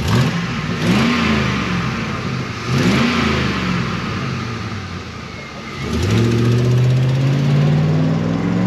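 2002 Chevy Suburban's V8 revved through a freshly fitted Cherry Bomb muffler: two short blips, one at the start and one about three seconds in, then from about six seconds in a longer rev that climbs steadily and is held.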